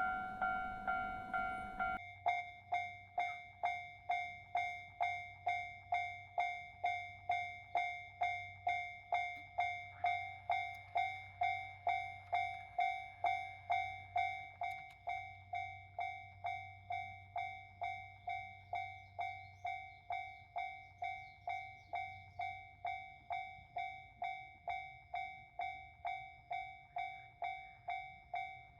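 Japanese railroad crossing warning signal ringing its steady 'kan-kan' alarm, a pitched ding repeating a little under twice a second without pause.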